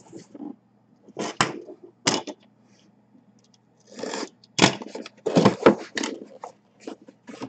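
A white cardboard box being handled and opened: a blade slitting the seal along its edge and the lid scraping as it comes up, heard as a series of short scraping rustles, busiest about four to six seconds in.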